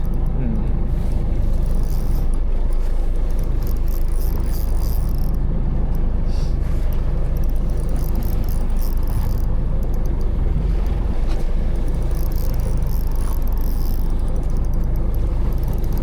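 Fishing boat's engine running steadily under way, a continuous low drone mixed with the rush of wind and water.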